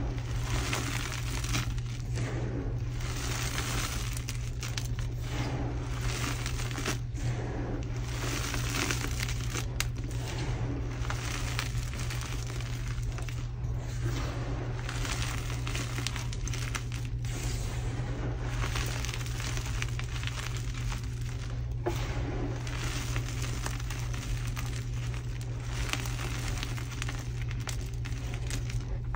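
Crushed, dyed gym chalk being dug into, raked and squeezed by hand: gritty chunks and powder crunching and crackling continuously, swelling and easing with each handful.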